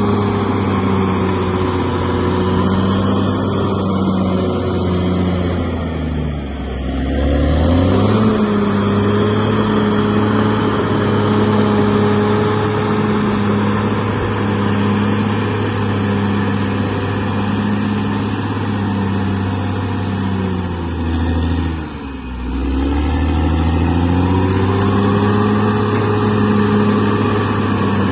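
Bulldozer's diesel engine running steadily; twice its revs sag and climb back up, about a quarter of the way in and again about three quarters in.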